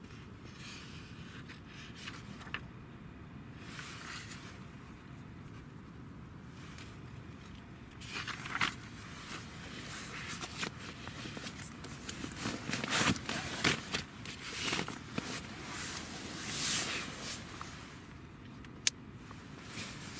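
Pages of a thick paper catalogue being leafed through and flipped, a run of irregular paper rustles that grows busier about eight seconds in, with one sharp click near the end.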